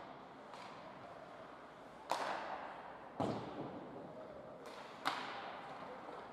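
Ice hockey puck and stick impacts, three sharp cracks each followed by a long echo in the rink; the second, about three seconds in, is the deepest, like the puck or a player hitting the boards.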